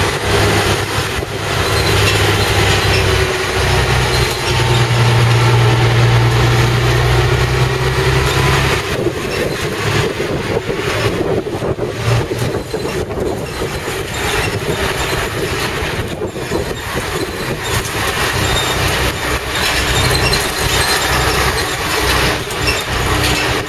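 Volvo B10 bus's diesel engine running under way, heard from inside the open-sided passenger saloon along with wind, road noise and body rattle. A strong low engine drone fills the first third, then eases off, leaving a rattling, rushing ride noise.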